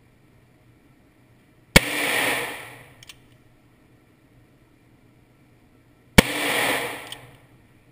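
Two handgun shots about four and a half seconds apart, each echoing for about a second through an indoor range, with a faint tick about a second after each.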